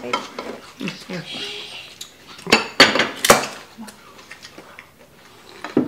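Dishes and utensils clinking and knocking on a dining table, with three sharp clinks in quick succession near the middle and a few softer knocks around them; quiet voices come and go underneath.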